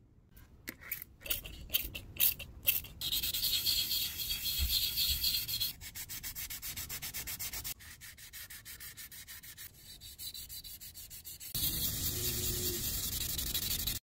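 Metal lantern reflector dish being wet-sanded by hand: a few separate rubbing strokes, then quick, rhythmic back-and-forth scraping as the dish is worked toward a polish. The level changes abruptly a few times between passages.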